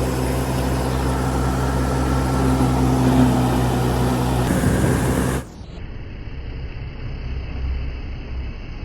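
Old combine harvester's diesel engine running steadily under a broad clatter of machinery. About five seconds in, it cuts off suddenly, leaving a quieter, even rushing noise.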